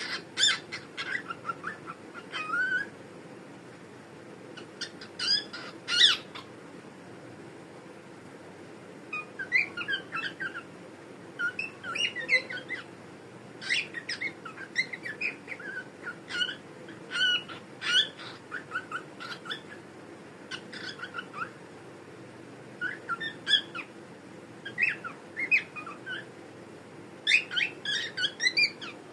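Pet cockatiel chirping and whistling in clusters of quick, short notes, with pauses of one to a few seconds between the clusters.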